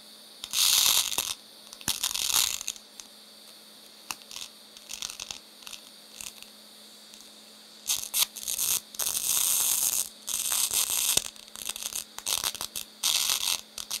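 TIG welding arc brazing cast brass with silicon bronze filler rod: a low steady hum under loud hissing, crackling spells that come and go as the heat is raised. Two short spells come early, then a long run of them in the second half.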